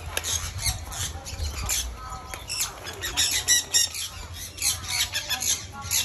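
Conures squawking in a flurry of short, harsh, high-pitched calls, coming thickest about three to four seconds in.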